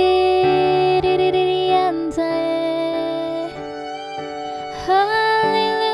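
Worship music between sung lines: a sustained keyboard pad under a single melody line of long held notes that slide between pitches.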